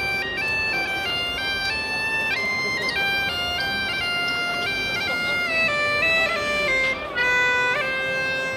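Medieval-style mouth-blown bagpipe playing a melody of short held notes, stepping up and down.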